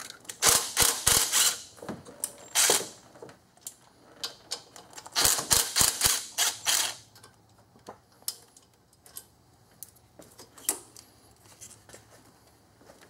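Battery-powered tool with a socket on a long extension rattling bolts out of an engine-bay bracket in short bursts of rapid clicks, about half a second in and again about five seconds in. Scattered light metal clicks follow as the loosened bracket and bolts are handled.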